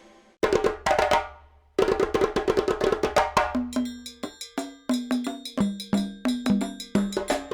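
Percussion-led background music. Quick rhythmic hits and short pitched notes start after a brief pause at the opening.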